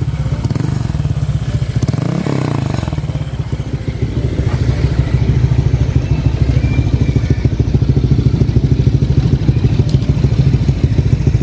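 Honda Vario 125 scooter's single-cylinder engine idling through an aftermarket CMS exhaust, a steady, low, fast pulsing. It gets a little louder from about five seconds in.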